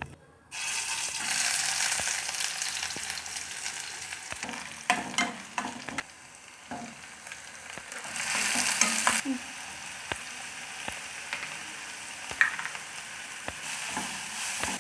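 Pav bhaji ingredients sizzling in a hot pan. The sizzle starts suddenly about half a second in, as if something was added to hot oil, and swells again around eight seconds in. A spatula stirring the food scrapes and knocks against the pan now and then.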